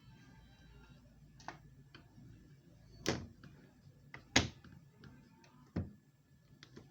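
A handful of short, separate knocks at uneven spacing, the loudest about four and a half seconds in.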